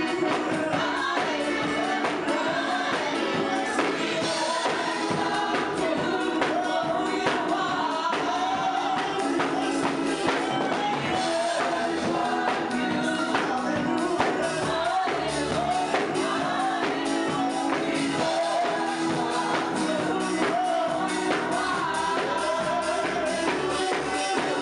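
Upbeat gospel music: choir-style singing over a band with a steady beat and tambourine.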